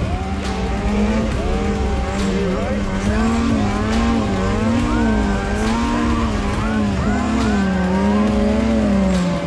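Snowmobile engine under heavy throttle in deep powder, its pitch rising and falling about once a second as the throttle is worked to keep the sled moving.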